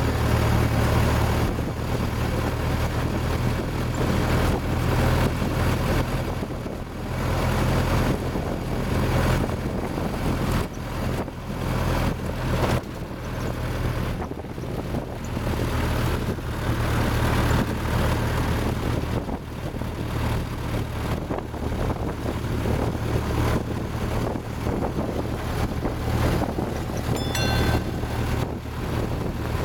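1913 Ford Model T's freshly rebuilt four-cylinder engine running steadily as the car drives along, with wind rushing over the microphone in the open car.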